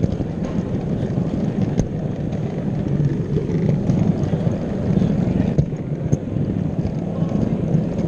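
Gauge O model locomotive running along the track, heard from a camera riding on its bufferbeam: a steady rumble of motor and wheels on rail, with an occasional faint click.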